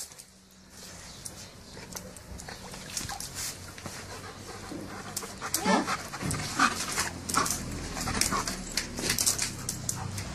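German Shepherd dog panting, with a couple of short whines about six seconds in, amid scattered light clicks.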